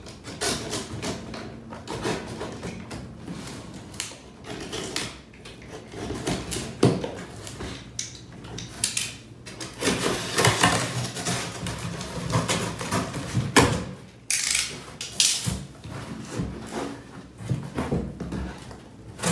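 Utility knife slicing through packing tape on a cardboard box: irregular scraping, rasping and crackling of tape and cardboard, with short sharp knocks as the box is handled. Near the end the cardboard flaps are pulled open.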